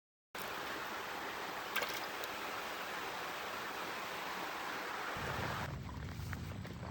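Steady rushing of river current, an even hiss, with a single sharp click about two seconds in. About five seconds in the hiss fades and a low rumble takes over.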